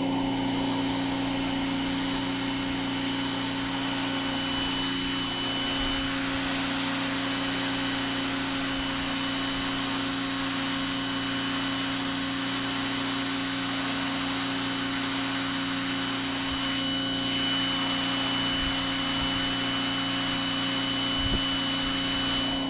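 Electric pressure washer running steadily under load: an even motor-and-pump hum with the water jet hissing across the surface being cleaned.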